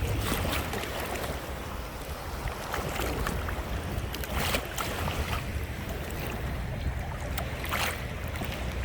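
Beach ambience: wind buffeting the microphone with a low rumble over the wash of the sea, and a few brief sharper sounds.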